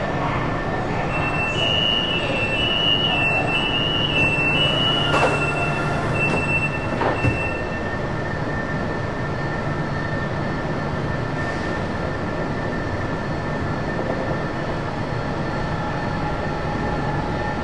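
Fully automatic metro train stopped at a platform: a high two-tone door-closing warning sounds for several seconds, with two clunks as the doors shut. The train then pulls away with a steady hum of motors, ventilation and wheels on rail.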